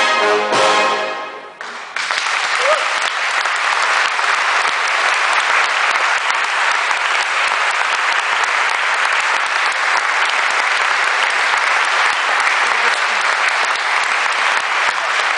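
A brass band's final chord dies away, and about two seconds in an audience breaks into steady applause that carries on.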